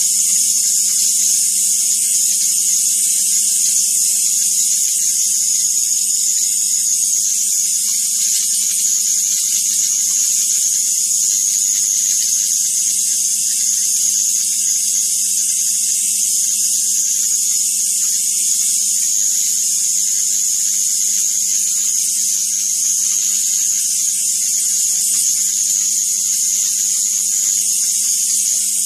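Continuous high-voltage arc from a ZVS-driven flyback transformer hissing steadily as it burns onto the terminal of a CRT tube, with a steady low hum beneath.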